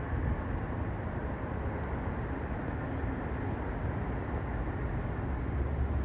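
Steady low rumble of outdoor city background noise.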